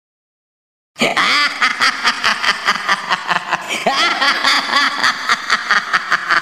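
Silence, then about a second in a loud laugh, chopped into rapid stuttering repeats about five or six a second with its pitch bending up and down.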